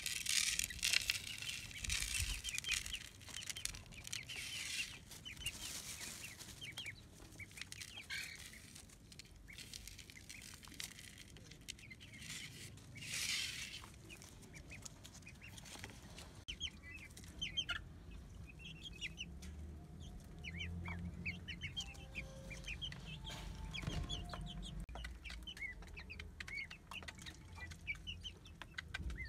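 Young chickens clucking and peeping, with many short calls through the second half. Cracked corn rustles as it is poured by hand into a wooden feed trough for the first several seconds and again briefly near the middle.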